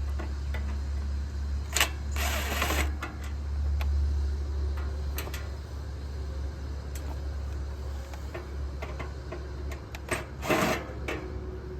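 Handling noises from taking the casing off a window air conditioner: scattered clicks and knocks, with two short scraping rasps about two seconds in and near the end, over a steady low hum.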